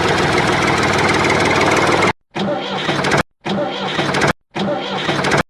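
Tractor engine running loud and steady, chopped into short pieces by several abrupt cuts to dead silence, as in an edited soundtrack.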